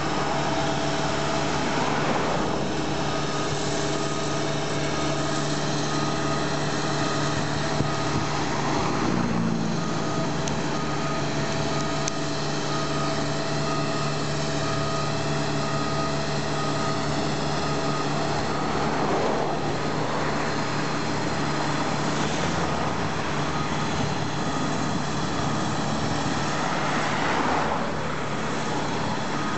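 Diesel engine of heavy road-paving machinery running steadily, its pitch dropping slightly about nine seconds in. For several seconds near the start a high beep repeats at an even pace.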